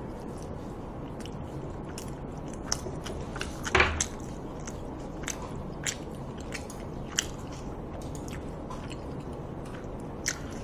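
Close-miked chewing of tender braised pig's trotters (jokbal): a string of soft, irregular wet mouth clicks and smacks, with a louder one about four seconds in.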